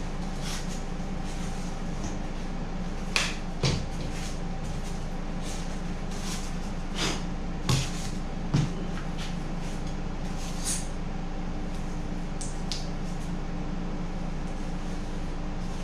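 A handful of short knocks and clicks as foam boards and a caulking gun are handled and set down, with a few lighter ticks later. Under them runs a steady low mechanical hum.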